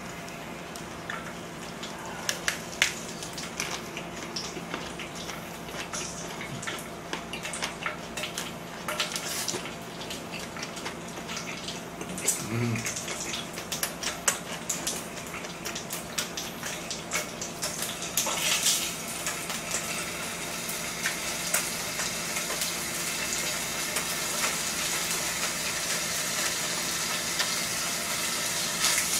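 Thin slices of raw pork belly sizzling in a hot pan, the sizzle growing louder about two-thirds of the way through, with scattered clicks of utensils against the pan and dishes.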